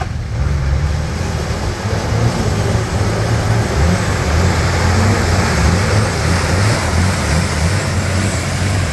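Nissan Patrol's TD42 diesel engine working under load as the four-wheel drive pushes through a deep, water-filled mud rut, with muddy water sloshing and splashing around its tyres.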